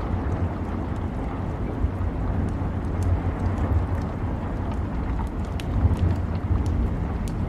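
Rain ambience: a steady wash of rain with a deep rumble underneath and scattered sharp drops tapping throughout.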